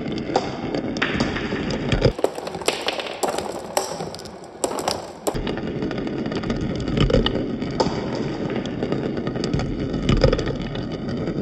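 Marbles rolling round inside a plastic funnel bowl: a steady rolling rumble with many sharp clicks as they knock together and drop through the hole. For about three seconds, about two seconds in, the rumble thins out and the clicks stand out more sharply.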